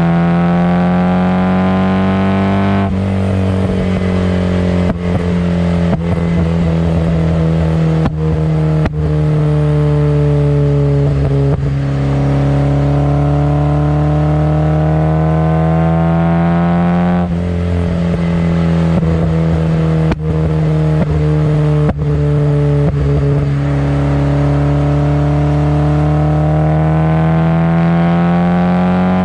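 Nissan KA24DE 2.4-litre four-cylinder running through ISR 4-2-1 headers, a test pipe and an HKS Hi-Power exhaust, pulling up through the revs, then cutting off sharply about three seconds in and again about halfway. After each lift the revs sink with sharp pops and crackles on the overrun before it pulls up again, building once more near the end.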